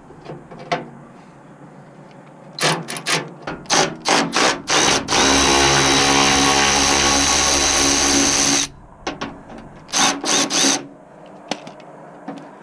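Power drill-driver spinning on a fender bolt: a few short triggered bursts, then a steady run of about three and a half seconds, then a few more short bursts as the bolt is backed out.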